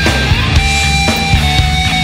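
Loud heavy rock music with distorted guitar and a steady drum beat.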